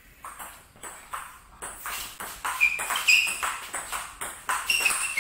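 Table tennis rally: the ball clicking back and forth off rubber-faced bats and the table, about three clicks a second, faint at first and louder from about two seconds in. A few short high squeaks come in among the clicks.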